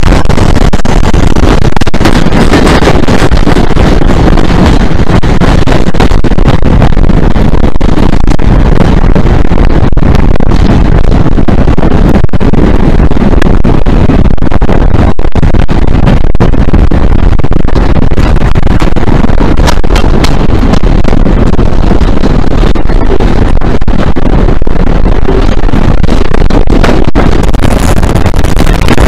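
Two Class 47 diesel locomotives' Sulzer twelve-cylinder engines running at the head of the train, heard from an open coach window just behind them, mixed with heavy wind buffeting on the microphone. The sound is very loud and steady.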